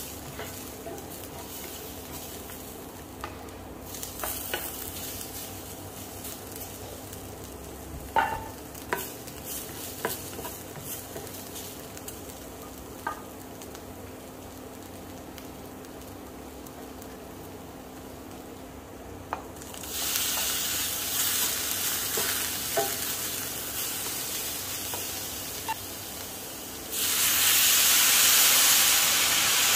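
Beef and garlic frying in oil in a skillet, a quiet steady sizzle with a few clicks of the spatula against the pan. About two-thirds through, the sizzle turns louder, and near the end water poured into the hot pan sends up a loud hiss of steam.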